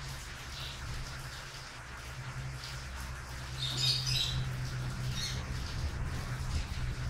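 Young puppies squeaking as they play, short high-pitched squeaks scattered through, the loudest a quick cluster about four seconds in, over a steady low hum.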